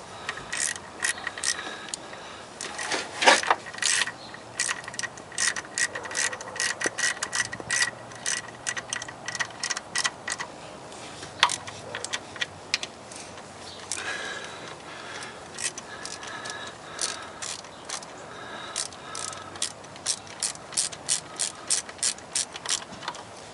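Hand ratchet wrench clicking in quick runs, with short pauses between them, as bolts are run down and tightened.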